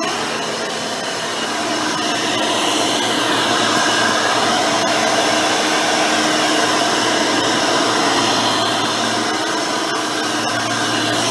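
Hoover Elite 600 upright vacuum cleaner, fitted with a modern 7-amp motor with a 20-blade fan, running while vacuuming. There is a steady motor whine over the rush of air, getting slightly louder about two seconds in.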